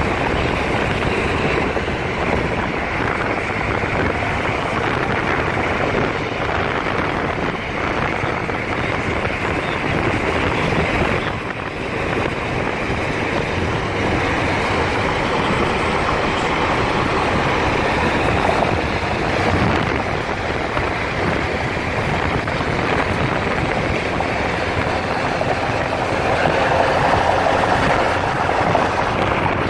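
Steady road and wind noise of a car travelling at highway speed, heard from inside the moving car.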